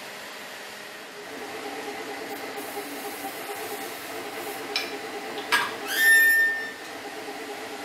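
A click, a sharp tick and then a short ringing squeak as the spring-loaded arm of a magnifier lamp is moved, over a steady background noise.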